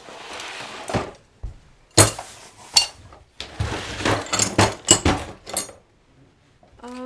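Loose metal hardware (screws, nuts and bolts) clinking and rattling as it is sorted by hand, a string of sharp clinks and knocks that stops about three-quarters of the way through.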